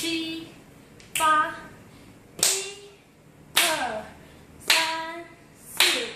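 Hand claps keeping a steady beat, about one clap every 1.2 seconds, six in all. Each clap comes with a short spoken syllable, as in counting out the beats of a dance routine.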